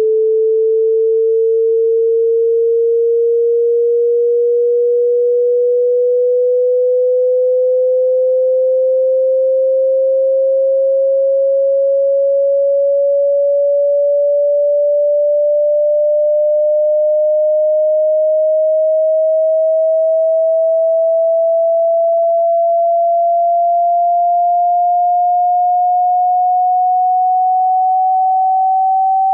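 Pure sine test tone of a hearing-test frequency sweep, gliding slowly and evenly upward in pitch by almost an octave, at a steady loudness.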